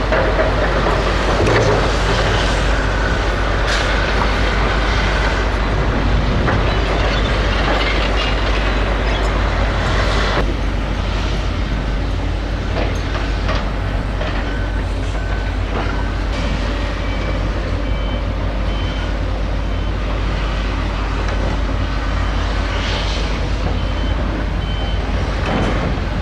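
Heavy construction machinery running steadily, excavators and articulated dump trucks working sand. From about halfway through, reversing alarms beep over and over at a few different pitches.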